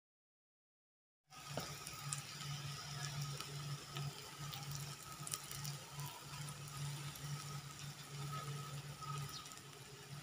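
Silent for about the first second, then oil sizzling and crackling steadily around a grated-potato pancake shallow-frying in a pan, over a low hum.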